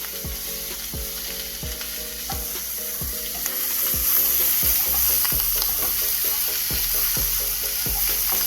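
Diced ham and hash brown pieces sizzling steadily in a hot frying pan, getting louder about halfway through. Background music's steady beat plays underneath.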